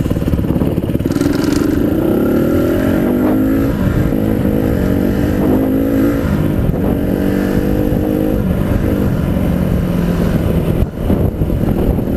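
Honda CRF150RB dirt bike's single-cylinder four-stroke engine running under way, heard from a helmet-mounted microphone. Its pitch climbs and then steps down several times as it shifts or changes throttle, with a brief dip in level about eleven seconds in.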